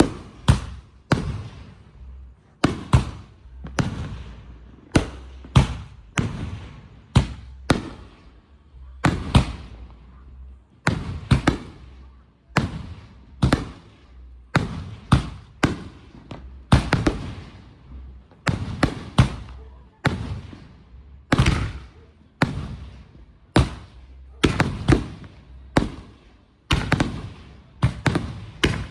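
Consumer firework cakes firing shot after shot: sharp bangs about one to two a second, unevenly spaced, each fading away over about half a second.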